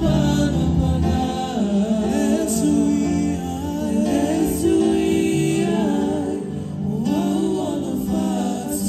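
Singers performing a gospel song through microphones, with voices moving over long held chords.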